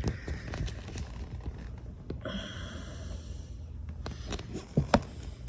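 Handling noises of a part being fitted by hand: scattered light taps and clicks, a rasping sound lasting over a second about two seconds in, and two sharp knocks near the end.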